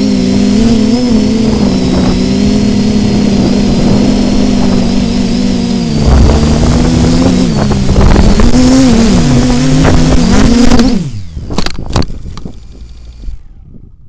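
Quadcopter's brushless motors and propellers whining, heard from the onboard camera with wind rumbling on the microphone. From about halfway the pitch swings up and down with the throttle. Around eleven seconds the whine drops away as the motors spin down, followed by a few sharp knocks as the drone comes down on the grass.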